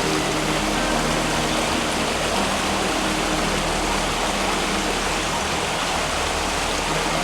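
Waterfall rushing: a steady wash of falling water.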